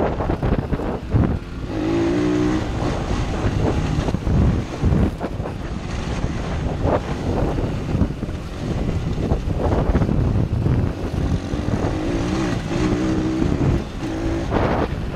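125cc dirt bike engine running under way on a bumpy dirt track, its engine note rising and falling with the throttle and standing out clearly about two seconds in and again near the end. Heavy wind noise on the helmet microphone, with knocks from the bumps.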